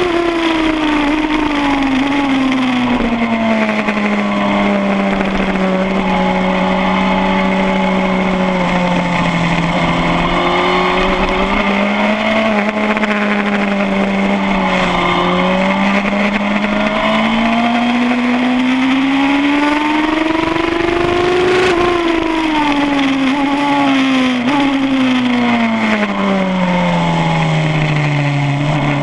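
2007 Suzuki GSX-R1000 K7's inline-four engine at racing speed. The note drops in the first seconds as the bike slows, holds low for a while, and climbs steadily under acceleration for several seconds. It drops again towards the end and starts rising just before it finishes, with steady wind rush underneath.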